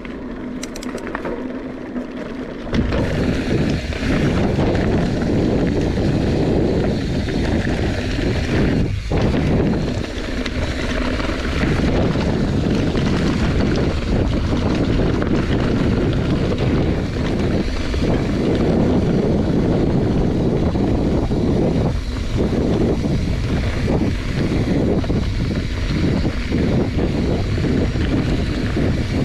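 Wind rushing over the microphone of a camera on a bicycle during a fast descent, rising suddenly about three seconds in and then staying steady.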